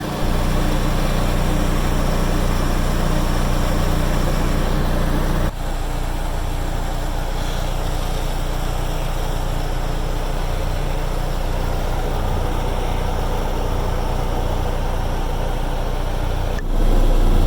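Cat 307 excavator's diesel engine running steadily. Its tone and level change abruptly about five seconds in and again near the end.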